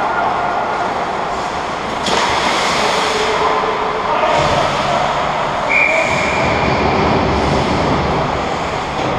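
Ice hockey skates scraping and carving on the ice with rink echo, a sharp knock of the puck about two seconds in, then a referee's whistle blown once for about a second near the middle, stopping play after the goalie goes down on the puck.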